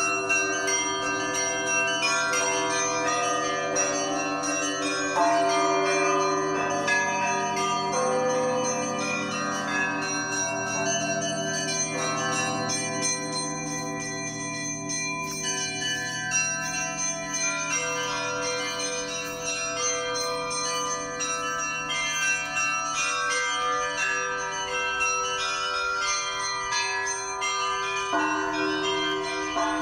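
Church bells ringing together: several bells of different pitches struck again and again in a continuous peal, the deep tones humming on under the quicker, higher strikes.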